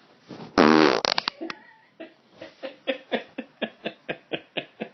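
A man's fart: one loud, buzzing, pitched blast about half a second long, followed by a run of short, quick pulses at about four or five a second.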